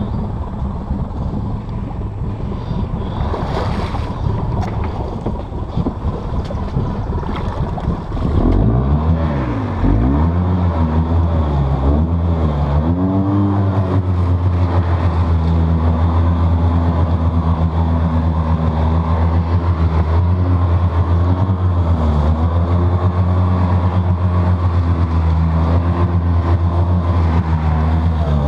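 Polaris Sportsman 700 ATV engine working to free the stuck quad from deep mud: it runs rough and uneven at first, then about eight seconds in revs up and down several times and settles into steady high revs as the wheels spin and throw mud.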